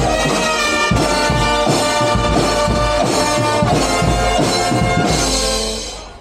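Guggenmusik brass-and-drum band playing loudly: trumpets, trombones and sousaphones over a steady bass-drum beat. It ends on a held chord that dies away near the end.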